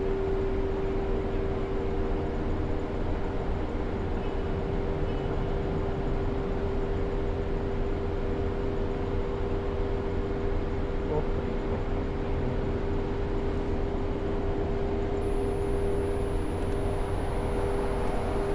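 A steady mechanical hum: a few constant pitches held unchanged over a low rumble, with no starts, stops or changes in speed.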